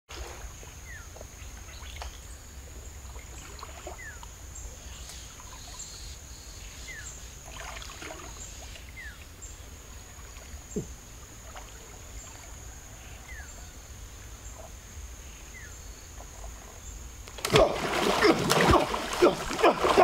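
Quiet outdoor river ambience with a steady high-pitched whine and scattered short falling chirps. About three-quarters of the way through, loud, irregular splashing breaks in as a person thrashes about in river water.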